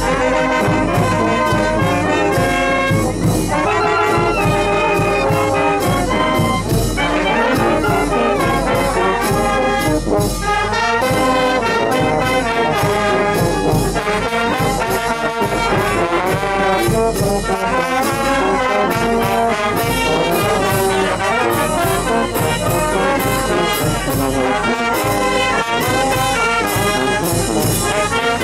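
Oaxacan banda filarmónica (brass band) playing: trumpets and trombones carry the tune over a steady drum beat.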